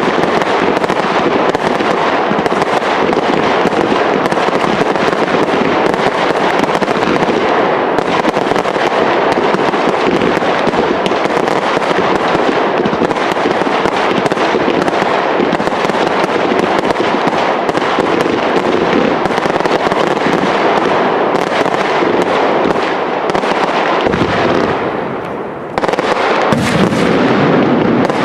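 Loud aerial fireworks barrage: many shells launching and bursting in quick succession, their bangs and crackling running together without a break. Near the end it eases for a moment, then starts again suddenly with large shells bursting.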